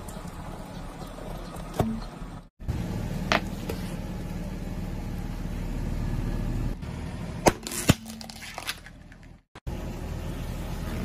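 A car creeping over small objects: the engine runs low and steady while a few sharp cracks and snaps come as things break under the tyre, the loudest two close together about three-quarters of the way through. The sound cuts out briefly twice where clips change.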